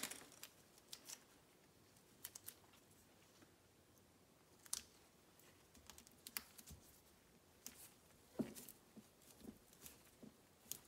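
Near silence with faint scattered crinkles and light clicks from a strip of Dynamat sound-deadening foil being handled and pressed onto a metal shifter bridge by gloved hands.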